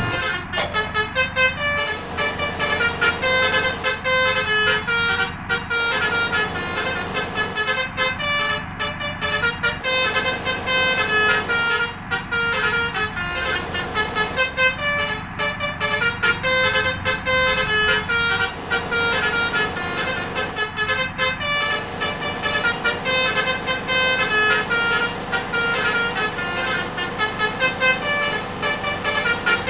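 Telolet basuri multi-trumpet air horn on a bus playing a quick tune of stepping notes, repeated over and over.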